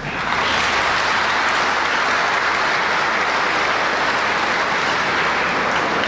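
Audience applauding, a dense steady clapping that starts at once and eases off slightly near the end.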